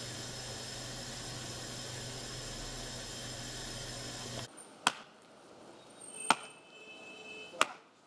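Steady hiss with a low hum from a lit gas stove burner, cutting off about four and a half seconds in. Then an axe chopping firewood: three sharp strikes about a second and a half apart.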